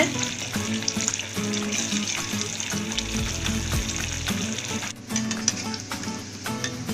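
Whole boiled potatoes deep-frying in hot mustard oil, the oil sizzling and bubbling steadily around them.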